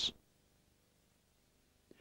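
Near silence after a man's narrating voice trails off at the very start.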